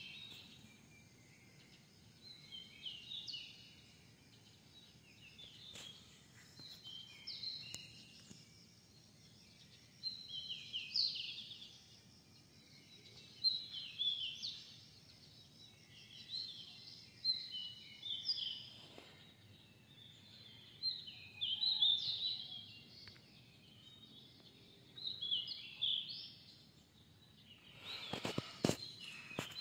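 A bird singing the same short, fairly high phrase over and over, about every three to four seconds, over a faint steady hum. A few sharp knocks come just before the end.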